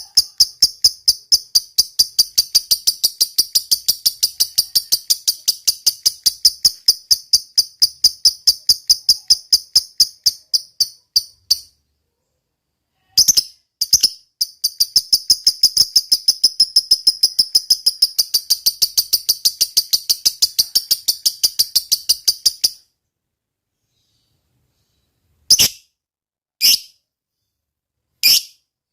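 Lovebird giving its long 'ngekek' chatter: a fast, even run of sharp, high notes, several a second. The run breaks off for a moment near the middle, picks up again and stops suddenly, leaving only three single calls near the end.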